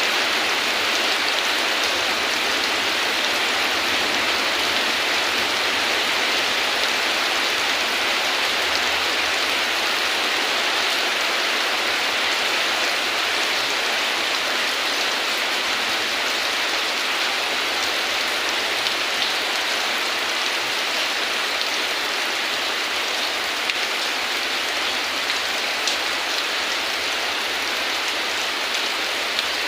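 Heavy rain falling steadily: a dense, even hiss of many drops, with a few louder single drops standing out in the second half.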